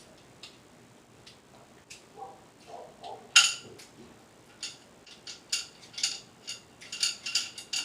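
Close-up mouth sounds of eating and drinking: scattered wet clicks and smacks, one sharper click about three and a half seconds in, coming faster over the last two seconds.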